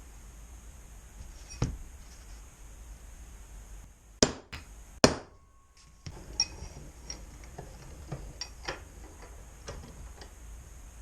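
Metal parts and tools knocking and clinking on a workshop bench: one knock, then two loud strikes about four and five seconds in, followed by a run of lighter clicks and taps.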